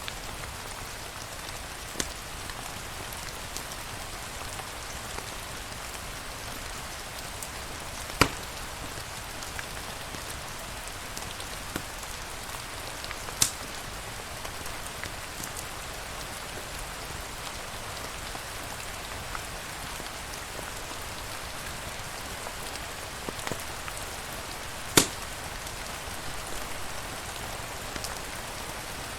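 Steady rain falling, an even hiss, with a few sharp pops scattered through it, four of them clearly louder than the rest.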